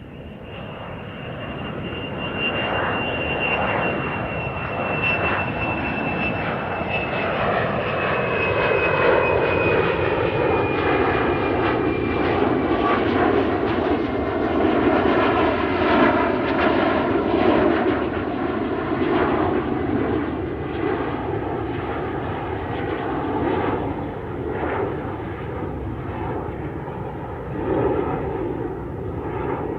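Aeroplane coming in to land, its engine noise growing louder over the first several seconds. A thin high whine slowly falls in pitch as it passes.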